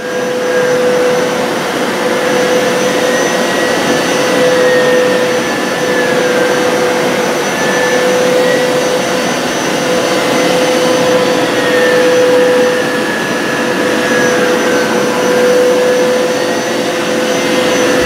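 Hoover PowerScrub XL FH68050 carpet cleaner running steadily: a rush of suction over a steady motor hum, with a fainter higher whine that wavers slightly.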